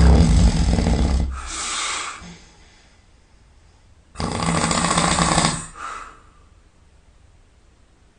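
A person snoring heavily in sleep: two long, low snores about four seconds apart, each followed by a shorter breathy hiss as the breath goes out.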